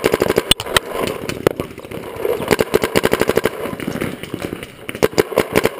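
Proto Reflex Rail electronic paintball marker firing rapid strings of shots, about ten a second, with short pauses between strings.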